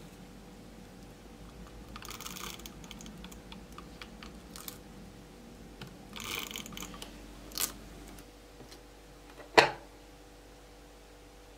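Handheld tape roller pressed and rolled over small pieces of paper: two spells of soft rustling and scraping, a short click, then one sharp, loud click near the end.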